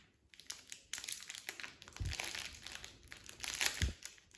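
Crinkling of packaging being handled and opened while a Pikmi Pops surprise toy is unwrapped, in uneven rustling bursts, with two soft low thumps about halfway and near the end.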